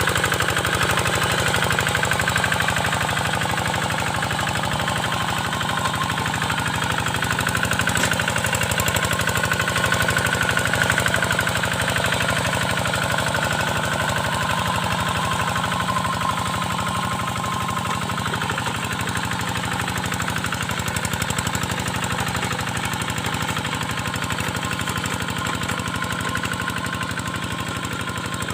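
Kubota single-cylinder diesel engine of a hand tractor running steadily with a rapid knocking beat, pulling a moldboard plough through wet paddy.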